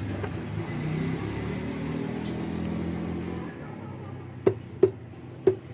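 Three sharp knocks of parts or tools against the scooter engine during reassembly, the first two close together and the third half a second later, over a steady low hum that drops away about three and a half seconds in.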